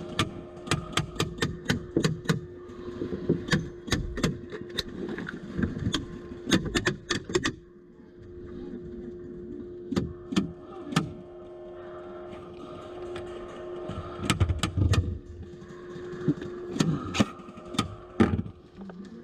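Airsoft gunfire: sharp cracks and snaps in quick strings, several times, over a steady low hum.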